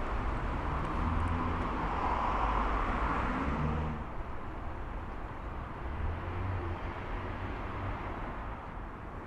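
Road traffic: a passing vehicle's engine and tyre noise swells and then drops away about four seconds in, leaving lighter background road noise.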